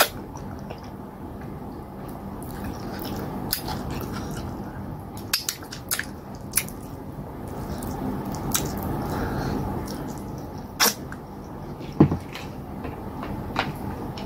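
Hand-eating sounds: fufu and slimy okra soup squished and scooped with the fingers, with chewing and scattered sharp smacks and clicks, about a dozen, the loudest two late on.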